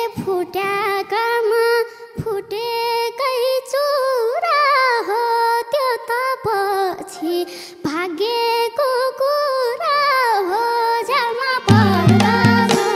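A young girl singing a long, ornamented solo line in a Nepali folk (lok dohori) song, with only light accompaniment beneath her. Near the end, the drums and the full band come in.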